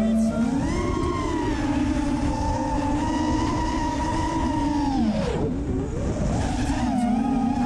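Brushless motors of a 5-inch DRI Archangel FPV racing quadcopter whining in flight, heard from its onboard camera. The pitch rises with throttle about a second in, holds, falls steeply around five seconds in as the throttle is chopped, then climbs again, over a low wind rumble.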